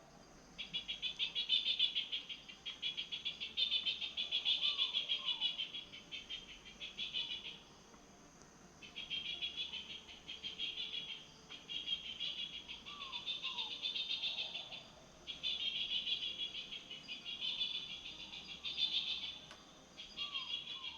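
Insects trilling at night: long runs of a fast, high-pitched pulsing trill broken by short pauses. A few faint short falling chirps sound lower down, about three times.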